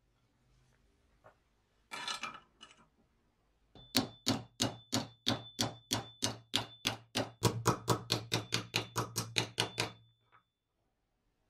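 A steel hammer striking a small flat steel plate that rests on a wooden block: a fast run of about thirty blows, roughly five a second and quickening toward the end, with a thin high ring from the steel under the blows. A single clatter comes about two seconds before the hammering starts.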